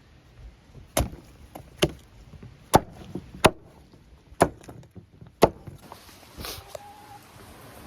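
A series of six sharp knocks, roughly one a second but unevenly spaced, like wood or a hard object being struck.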